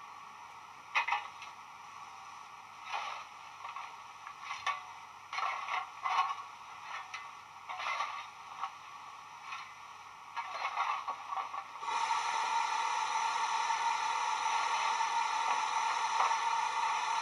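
Sound decoder in a Bachmann City of Truro model locomotive playing standing steam-engine sounds through a small tender speaker, tinny like a radio: scattered scrapes and clanks for about ten seconds, then a steady hiss of steam from about twelve seconds in.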